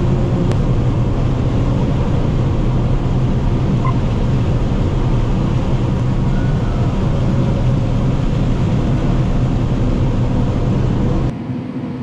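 Combine harvester heard from inside its cab while unloading corn and harvesting: a loud, steady engine and machinery hum. Near the end it cuts abruptly to a quieter cab hum.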